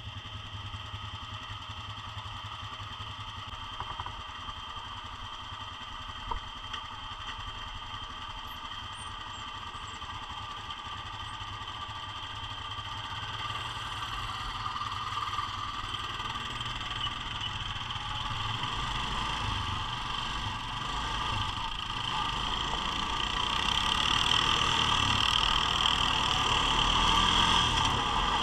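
Single-cylinder ATV engines, a Honda Foreman and a Yamaha Grizzly, idling steadily, then growing louder over the last ten seconds or so as the ATVs pull away.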